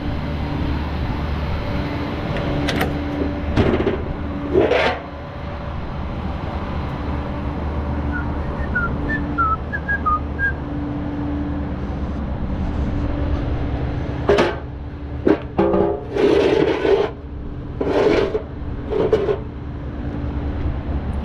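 Flatbed tow truck running steadily while the winch pulls a lowered pickup up the bed on ramps, with a hum that comes and goes. Scraping and knocking noises sound a few seconds in, and a louder cluster of them comes near the end as the low truck moves over the ramps and bed.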